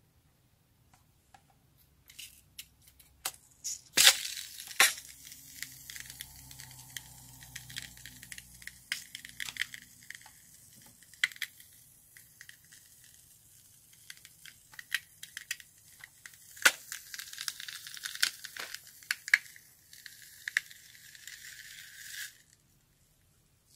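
Foam being squeezed out of the neck of a latex balloon: a hissing, sputtering stream with many crackling pops, the loudest two about four and five seconds in. It cuts off suddenly near the end as the balloon empties.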